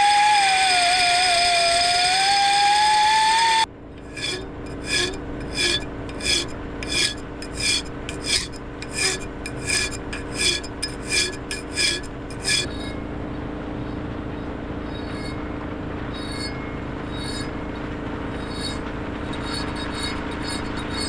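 A powered belt file runs against a metal plate held in a vice, its motor whine sagging under load and then rising before it cuts off about three and a half seconds in. Hand-file strokes across the metal follow, about one and a half a second. From about twelve seconds in the filing turns lighter and quieter: fine finishing after the rough cut.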